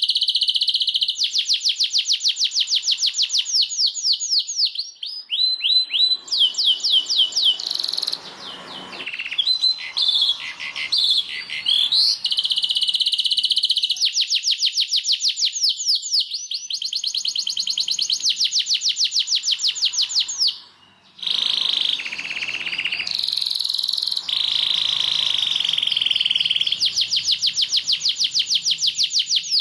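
Domestic canary singing a long, continuous song of fast trills. Each run of rapidly repeated high notes gives way to a new run every few seconds, with one brief break about two-thirds of the way through.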